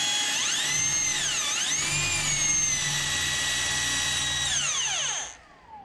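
Electric drill spinning in plain rotary mode with the hammer action off, its pitch dipping once as the bit is pressed against the wall, then winding down near the end as the trigger is released. The bit makes little headway without the hammer setting.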